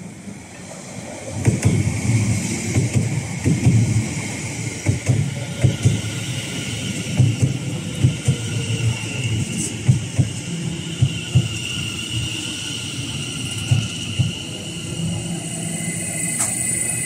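Greater Anglia electric multiple-unit train running along the platform close by. Its wheels knock in a quick, uneven series over the rail joints, under a steady high whine. The knocks thin out near the end as the train slows into the station.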